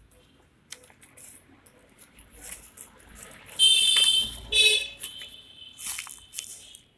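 Thin plastic bag and a paper instruction sheet crinkling and rustling as they are handled, in short scattered crackles. Around the middle a loud high-pitched tone sounds twice in quick succession, then fades to a fainter steady tone.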